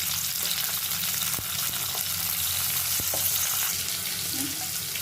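Oil sizzling in a frying pan with chopped garlic and chili flakes, with two sharp clicks about a second and a half apart.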